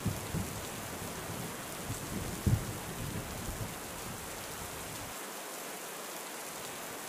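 Rain falling with a steady hiss, under low rumbles of thunder in the first few seconds, the loudest about two and a half seconds in. The thunder dies away a little after five seconds, leaving only the rain.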